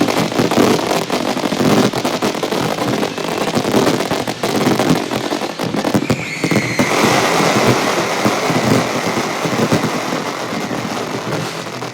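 Fireworks bursting and crackling in rapid, continuous succession. About six seconds in, a steady high whistle-like tone sets in over the crackle and holds until near the end.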